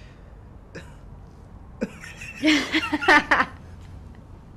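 Two people breaking into stifled laughter: a couple of small snorts, then a loud burst of laughing about two and a half seconds in that lasts about a second.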